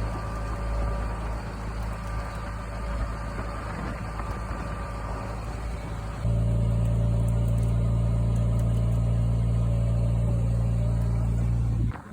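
Heavy truck engine running steadily, stepping up to a louder, fuller note about halfway through and holding there until it cuts off just before the end.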